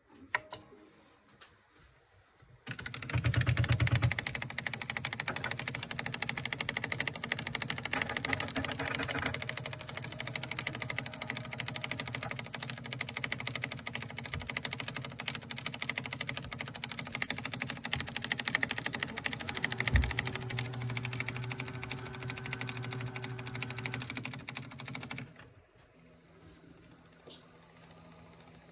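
3D printer extruder clicking rapidly and continuously, a dense mechanical clatter that starts a few seconds in and stops suddenly near the end, leaving a faint steady hum.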